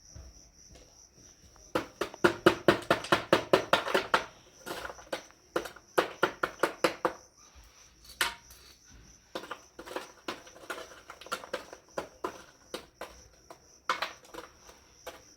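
Rapid series of sharp knocks and clicks, densest and loudest about two seconds in, then in scattered bursts, over a steady high chirring of crickets.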